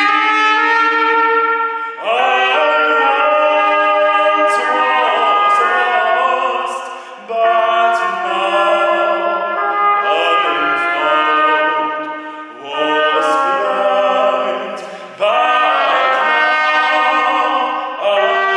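Trumpet and a classical tenor voice performing together, in sung phrases of a few seconds each with brief dips between them.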